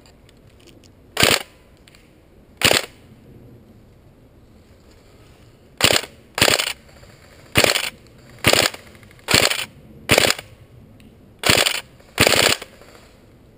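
Tokyo Marui G36C recoil-shock electric airsoft rifle firing ten short full-auto bursts. Two come about a second and a half apart, then after a pause eight more follow at roughly one a second.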